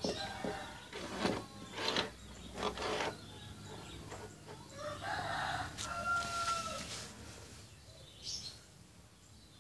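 A rooster crowing, with one drawn-out call about five to seven seconds in, after several short, sharp sounds in the first three seconds.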